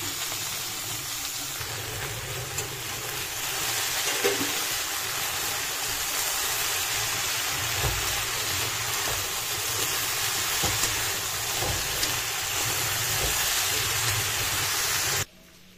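Sliced pointed gourd and potato sizzling in hot oil in a kadai, a steady loud hiss with a few light scrapes of a slotted metal spatula. It cuts off suddenly near the end.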